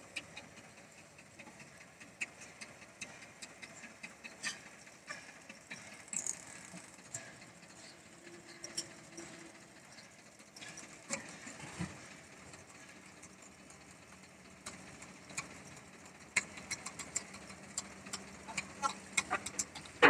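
Tractor engine running faintly, with scattered light clicks and knocks of metal.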